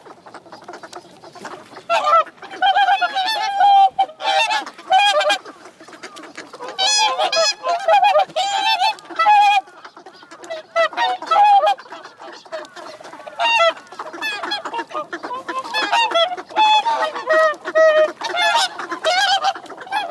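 A flock of whooper swans calling: repeated honking calls, several overlapping, in bursts with short lulls between.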